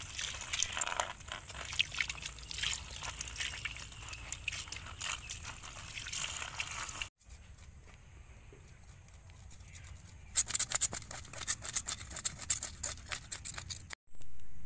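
Water splashing and trickling as two fish are rinsed by hand in a woven bamboo basket. It cuts off about seven seconds in; from about ten seconds in comes a run of quick, sharp clicks and taps.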